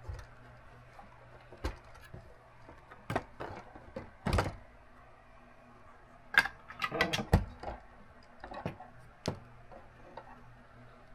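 Plastic building-brick model being handled: scattered clicks and knocks as a floor section of the modular building is lifted off and set down, with a quick cluster of clicks a little past the middle. A faint steady hum lies underneath.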